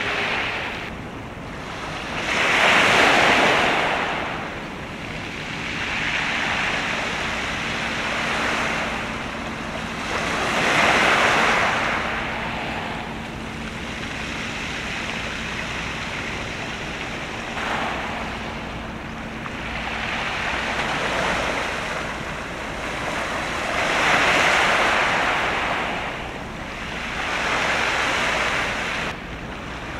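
Waves washing in against the shore, swelling and fading every few seconds, with wind on the microphone. A faint low steady hum runs under them until about two-thirds of the way through.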